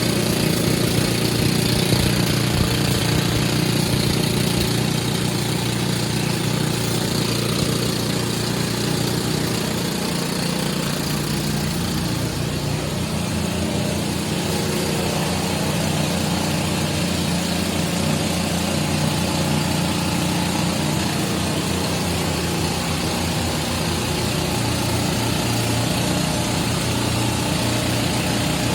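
Diesel engine of an excavator-mounted drill rig running steadily, with a dense rapid low pulsing and no breaks, a little louder in the first few seconds.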